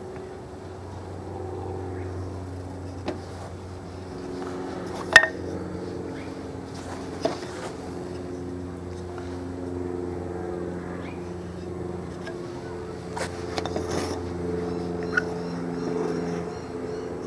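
A few light knocks and clicks of wooden boards and a pen being handled on a workbench, the sharpest about five seconds in. Under them runs a steady low drone of several tones that shift in pitch every second or two.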